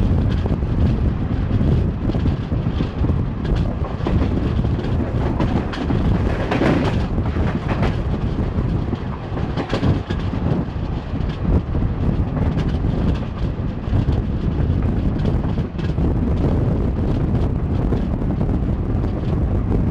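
Passenger train running, heard from aboard the coach: a steady rumble of wheels on rail, a few sharper clacks near the middle, and wind buffeting the microphone.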